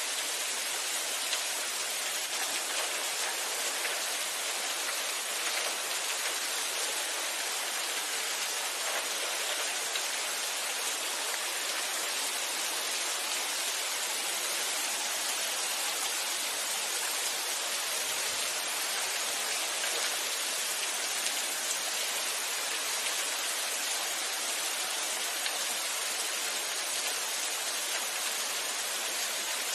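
Steady rainfall: an even, constant hiss of rain.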